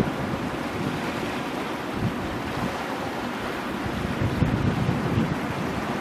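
Ocean waves breaking on rocks offshore, heard as a steady rushing surf. Wind buffets the microphone in irregular low rumbling gusts, strongest about four to five seconds in.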